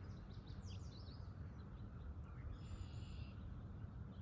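Faint outdoor ambience: a few brief distant bird chirps about half a second to a second in, and another short, higher bird call around three seconds in, over steady low background noise.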